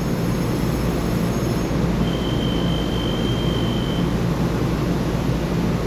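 Steady hum and rumble of a Taiwan Railway EMU3000 electric multiple unit standing at an underground platform. A single steady high beep sounds for about two seconds, starting about two seconds in.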